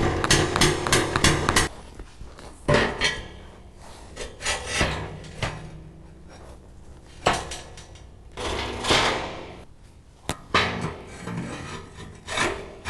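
Metal ribs being knocked and slid into place on a sheet-metal welding-table top: a quick run of knocks, about five a second, in the first second and a half, then scattered single clanks and metal scraping on metal.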